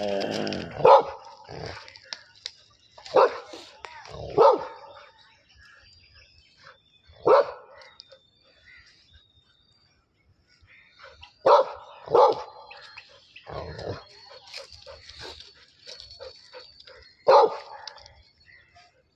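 Labrador retriever barking: about seven sharp single barks, spaced irregularly with pauses of a few seconds, two of them in quick succession near the middle.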